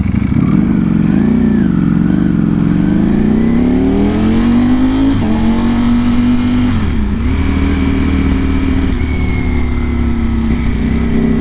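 Ducati Panigale V4R's V4 engine through an Akrapovic exhaust, heard from the moving bike. The note wavers at first, then climbs steadily under acceleration, breaks off about five seconds in and drops briefly again near seven seconds, then holds a steady pitch.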